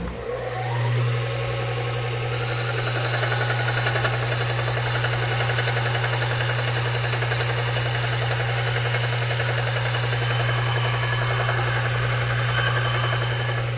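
Kalamazoo combination belt-and-disc sander running with a steady motor hum and belt hiss, coming up to speed in the first second. A steel mandrel-bent header tube is pressed against the belt, sanding its bandsaw-cut end flat and true for a gap-free fit-up.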